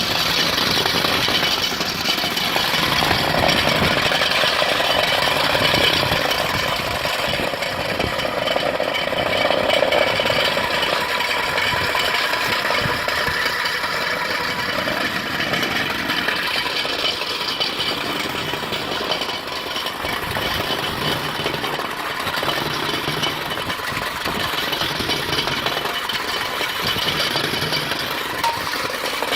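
Mini concrete mixer running steadily.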